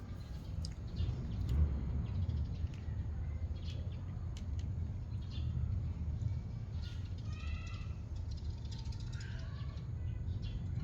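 A few brief, high animal calls about two-thirds of the way in, over a steady low rumble and scattered small clicks.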